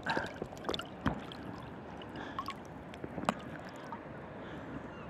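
Sea water sloshing and splashing around a swimmer as he moves through it, with a few short, sharp splashes.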